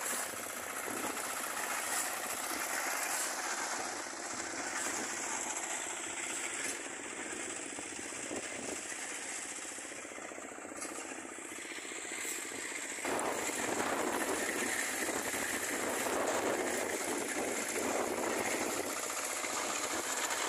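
Small engine of a portable drum concrete mixer running steadily with a fast, even knocking, louder from about two-thirds of the way through.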